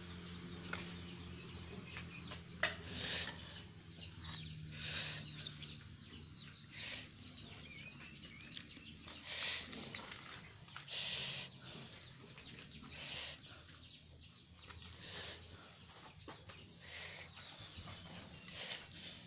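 Animal calls, short and scattered, over a steady high-pitched hum.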